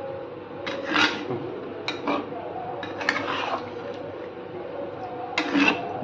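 A spatula scraping and stirring chicken pieces through thick gravy in a pan, four scraping strokes over a steady background hum.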